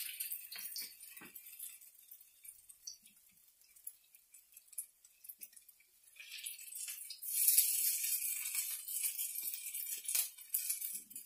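Hot oil sizzling in a frying pan, coming in about six seconds in, with light clinks of a spoon against the pan. Before that, only a few faint clicks.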